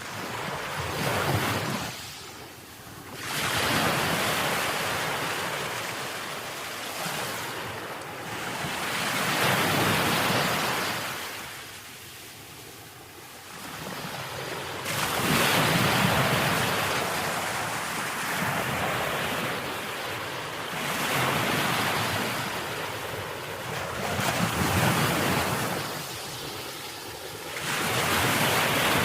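Ocean waves breaking and washing ashore, rising and falling in surges every few seconds.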